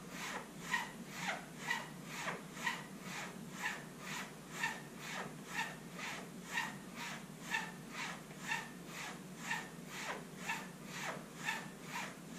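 Straight razor being stropped on a cloth strop: a steady run of short swishes of the blade across the fabric, about two strokes a second, as the freshly honed edge is finished.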